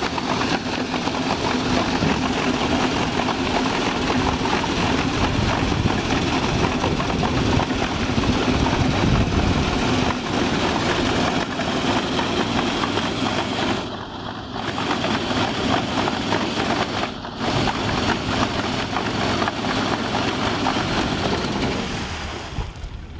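Small go-kart engine running hard, driving a paddle wheel that churns the water and throws up spray; the wheel is geared too high and spins too fast. The engine sound dips briefly twice in the middle and eases off near the end.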